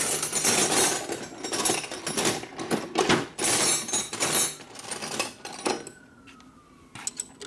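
Metal hand tools clattering and rattling as they are rummaged through and handled, in uneven bursts for about six seconds before it dies down.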